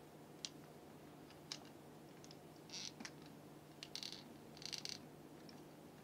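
Small screwdriver working the terminals of a water heater switch: a few sharp clicks of metal on metal and plastic, then short scratchy rasps about three, four and five seconds in, over a faint steady hum.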